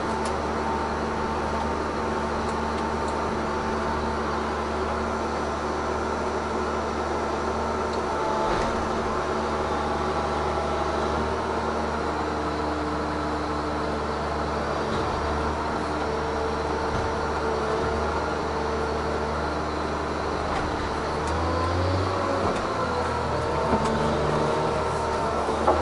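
Tigercat 1075B forwarder's diesel engine and hydraulics running steadily, heard from inside the cab. The pitch wavers down and up briefly near the end.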